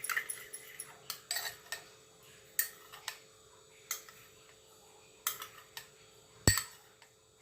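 A spoon clinking against a small bowl or cup in scattered light taps, about one every half second to a second, with one sharper click near the end.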